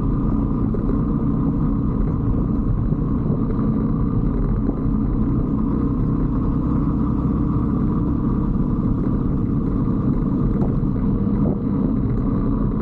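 125cc Brixton motorbike engine running steadily on the move, with a constant low rumble of wind and road noise.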